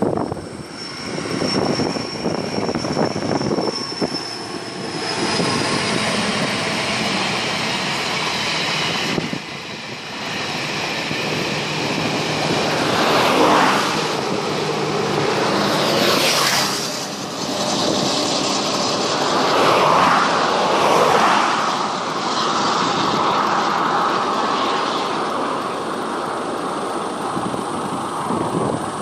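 Vehicles passing close by, several in turn, in a steady loud rush of noise.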